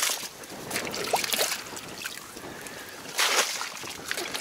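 Rustling and scraping as someone moves about in an inflatable boat among reeds, handling a plastic box. Two loud rustles, one at the start and one about three seconds in, with fainter rustles and a couple of short squeaks about a second in.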